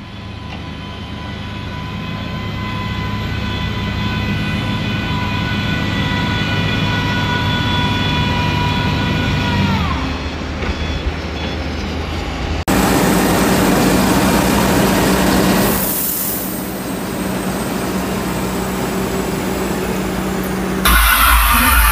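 Heavy dump truck's diesel engine working in deep mud: a steady low engine note under a high whine that falls in pitch and dies away about ten seconds in. After a sudden cut, a louder, rougher engine-and-mud noise from a second truck.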